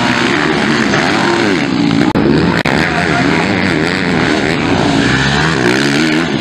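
Motocross race bikes' engines revving up and down repeatedly as they pass close by on the dirt track.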